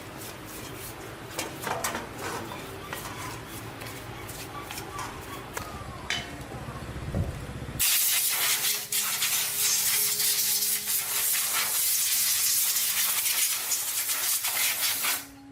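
Small clicks and knocks of parts being handled, then a loud steady hiss of compressed air that starts suddenly about halfway through and cuts off abruptly near the end.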